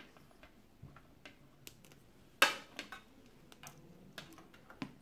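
Scattered light clicks and taps from plastic medical supplies being handled as a blood draw is readied, with one sharp, louder click about two and a half seconds in.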